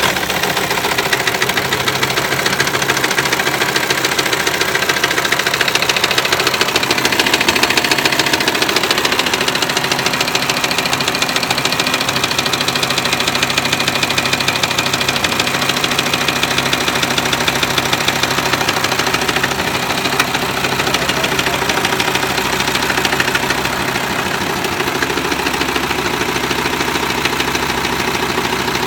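Volkswagen Touareg R5's 2.5 TDI five-cylinder diesel idling steadily with a knock (стук) in its running.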